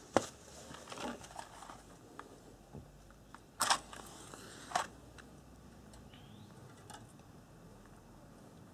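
A sharp click near the start, then a match struck a few seconds in, a short scratchy flare, followed about a second later by another short burst as the flame is put to a Coleman 288A700 gasoline pressure lantern.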